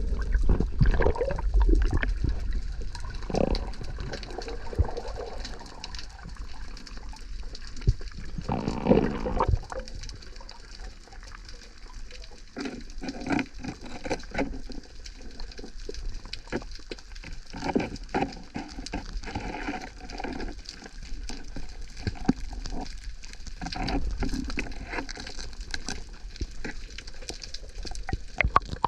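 Water swirling and bubbling around a waterproof action camera, muffled, with many scattered clicks and knocks and a couple of louder surges of rushing water.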